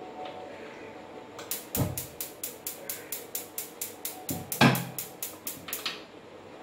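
Gas stove's spark igniter clicking rapidly and evenly, about five clicks a second for some four seconds, with two heavier knocks among the clicks.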